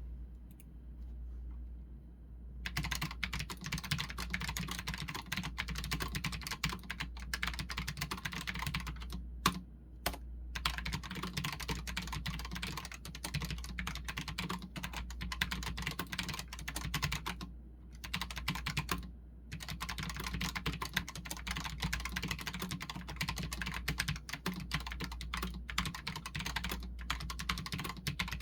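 Rapid continuous typing on a Redragon K618 Horus low-profile mechanical keyboard, starting a few seconds in and broken by several brief pauses, over a steady low hum.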